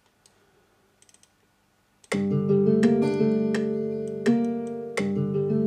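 Sampled steel-string guitar patch in FL Studio's FLEX plugin playing back a programmed loop of plucked chords and single notes. It starts about two seconds in, after a few faint mouse clicks, with a note re-struck about every two-thirds of a second.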